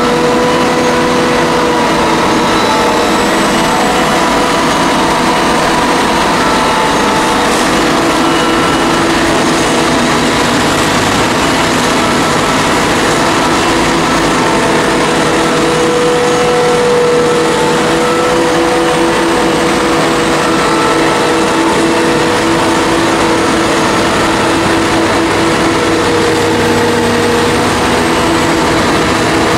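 Heavy machinery chopping maize: engines running steadily under load, with a steady whine that drifts a little in pitch.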